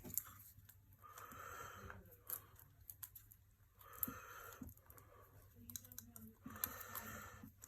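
Faint rubbing and scraping in three short spells, with light clicks between them, from hands working on a phone's screen and screen protector.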